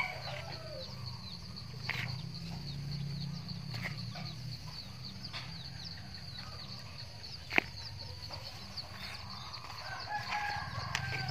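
Quiet outdoor background with a steady high-pitched chirping, a few soft knocks as hands firm potting soil around a plant in a plastic pot, and a short pitched call near the end.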